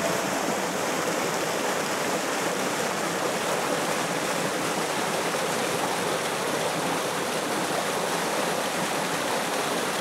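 Rushing mountain water, a steady even rush with no other sound over it.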